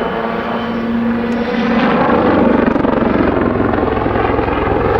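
Army Air Corps Westland Lynx helicopter flying a backflip: a fast, steady rotor beat over its twin turbine engines. A steady whine fades in the first second or so, and the rotor noise grows louder and deeper about two seconds in as the helicopter works through the manoeuvre.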